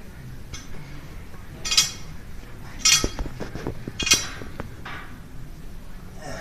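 Iron weight plates rattling and clinking on loaded barbells during bench-press reps: four short rattles about a second apart, with a run of sharp metallic clinks in the middle.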